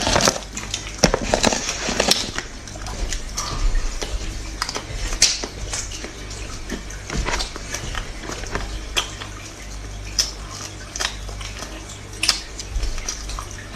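Close-miked eating: scattered short clicks and crackles of chewing and mouth sounds, with the odd clink of cutlery or dishes, over a low steady hum.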